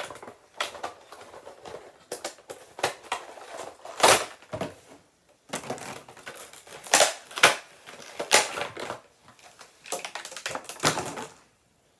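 Cardboard box and plastic insert of a Funko Pop figure being handled and pulled apart to get the figure out: irregular clicks, taps and crinkles of packaging, a few sharper snaps among them.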